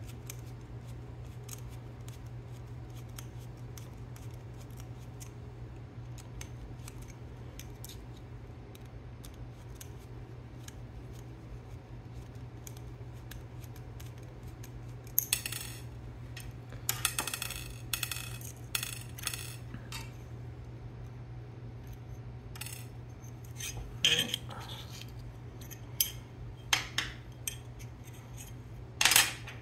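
Small light ticks of a screwdriver working screws on a metal robot-arm bracket. From about halfway there are louder sharp clicks and the clatter of small metal parts being handled, in several short spells, over a steady low hum.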